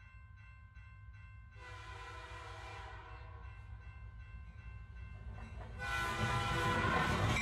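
Train whistle sounding twice over the low rumble of a moving train: a blast of about a second and a half near the start, then a louder, longer one near the end.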